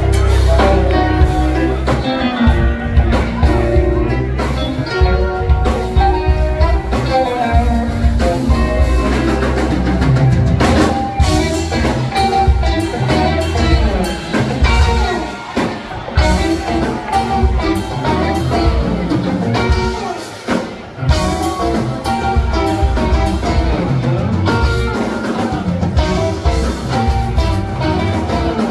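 Live jam band playing a guitar-led passage with electric guitars and a drum kit, heard from within the audience.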